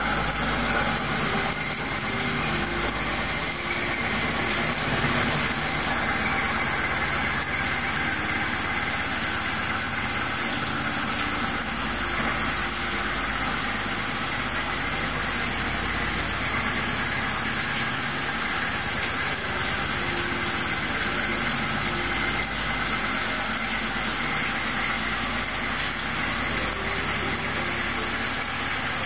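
CNC vertical milling machine cutting metal: the spindle runs steadily as the cutter works the part, with flood coolant spraying onto the cut, one even, unbroken machine noise.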